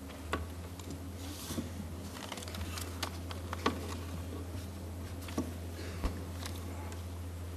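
Irregular clicks and knocks of a laptop being operated and handled at a lectern, picked up by the lectern microphones, over a steady low electrical hum.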